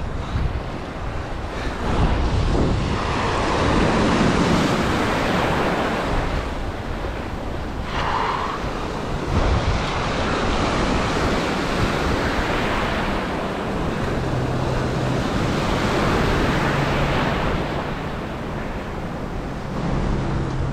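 Waves washing in and out, the noise swelling and fading every few seconds, with wind buffeting the microphone. A low steady hum joins about two-thirds of the way through.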